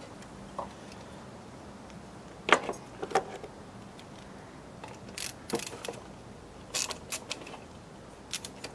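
Scattered clicks and knocks of a screwdriver and hard plastic parts being handled as the plastic housing of a Mosquito Magnet Patriot Plus is taken apart. A sharper knock comes about two and a half seconds in, and quick runs of clicks follow in the second half.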